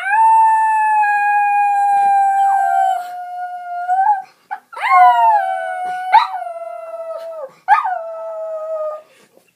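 Cockapoo (cocker spaniel and poodle mix) howling: one long howl of about four seconds that slowly sags in pitch, then after a short break three shorter howls, each starting with a sharp upward yelp and sliding down.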